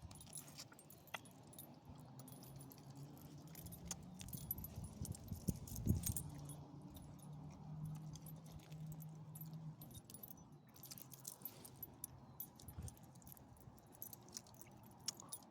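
Faint light metallic jingling and clicking, with a low steady hum through the middle and a soft knock about six seconds in.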